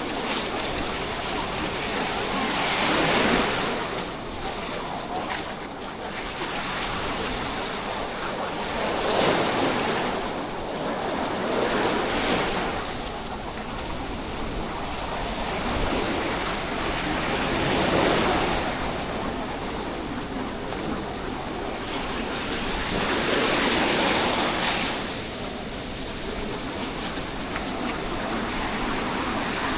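Calm sea waves breaking and washing on the shore, a swell of surf every few seconds over a constant wash.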